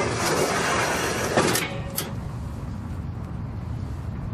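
A slide-out barbecue box on a truck's front bumper being pushed shut: a sliding scrape for about a second and a half that ends in a sharp clunk as it seats, then a single click about half a second later.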